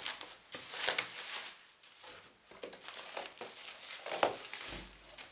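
Clear plastic bag crinkling and rustling as it is handled and pulled out of a cardboard box, in irregular bursts, loudest about a second in and again about four seconds in.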